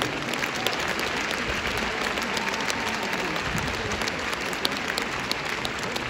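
Crowd applauding steadily, many hands clapping with a few sharper individual claps standing out.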